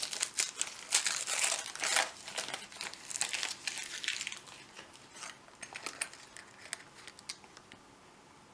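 Gift wrapping paper being torn open and crinkled by hand: a dense run of rustling and crackling for about four seconds, then a few lighter ticks and scrapes that die away.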